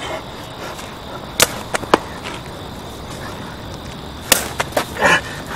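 Open-hand slaps landing on a person's head: a loud smack about a second and a half in with two lighter ones right after, then another loud smack about three seconds later followed by a few more.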